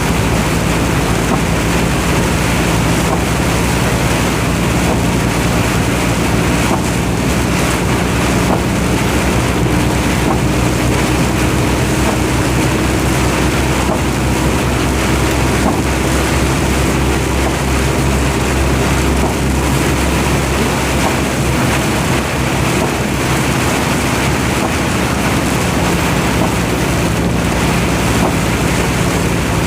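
Vehicle engine running steadily under loud, even road and wind noise, the engine hum shifting slightly partway through.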